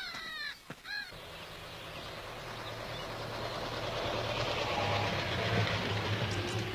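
A motor vehicle approaching, its low steady engine hum and rolling noise growing louder over several seconds. A few short bird chirps sound at the start.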